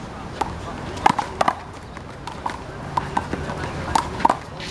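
A handball rally: a rubber handball is slapped by players' hands and smacks off the wall and pavement. About ten sharp, irregular smacks, some in quick pairs.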